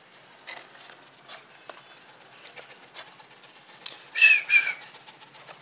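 A dog lapping water from a plastic mug: faint wet clicks about every half second. Two short high-pitched squeaks come a little after four seconds in and are the loudest sound.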